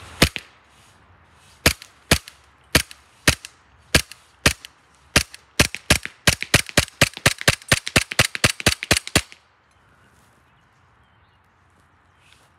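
Green-gas blowback airsoft Glock 19X firing a string of shots, each a sharp crack with the slide cycling. The shots come about half a second apart at first, then quicken to rapid fire of about five a second, and stop about nine seconds in.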